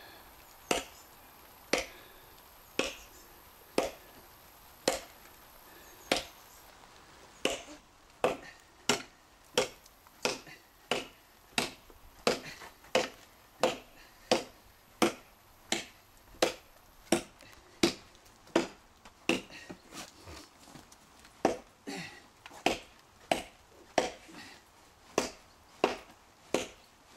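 Cold Steel Trail Hawk tomahawk chopping into a hard seasoned elm log, sharp strikes of steel into wood. The strikes come about once a second, then quicken to about two a second from about seven seconds in.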